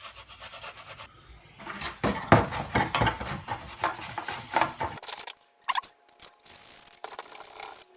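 Steel wool scrubbing over a hard plastic RC car body to strip its paint, with irregular scrapes, knocks and handling clatter, a few brief squeaks near the middle.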